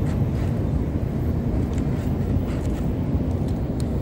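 Steady low rumbling outdoor background noise with no clear pitch, with a few faint ticks over it.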